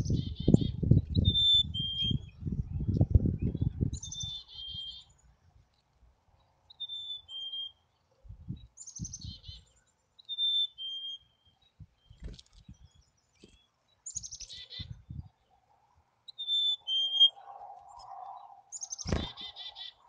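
Black-capped chickadee singing its whistled two-note fee-bee song several times, each a clear higher note dropping to a lower one, with short high chickadee call notes in between. Loud low rustling thumps close to the microphone in the first few seconds.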